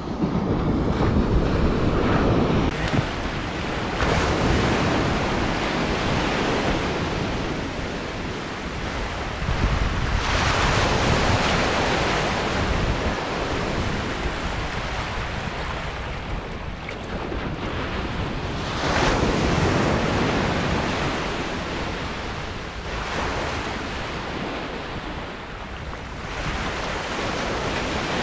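Ocean surf breaking on a sandy beach, the wash swelling and easing as each wave comes in, with wind on the microphone.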